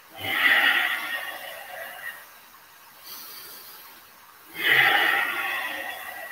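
A man's loud, effortful breathing: two long breaths of about two seconds each, the first just after the start and the second about four and a half seconds in, as he works through reverse-tabletop hip lifts.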